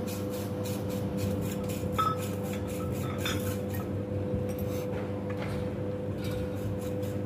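Steady electrical hum of an energized high-voltage substation, a low drone with a clear higher tone held above it. Light metallic clinks of hardware and tools on the jumper fittings come about two seconds in and again a second later.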